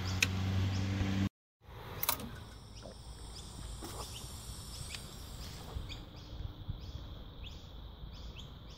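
Quiet outdoor background with a small bird chirping over and over, about twice a second in the second half, and a few light clicks. In the first second a steady low hum plays, then cuts off abruptly.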